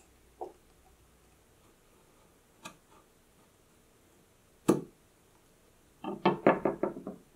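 Kitchen knife cutting a vanilla bean pod on a wooden cutting board: light taps, then one sharp knock of the blade on the board a little past halfway, and a quick run of about eight knocks near the end.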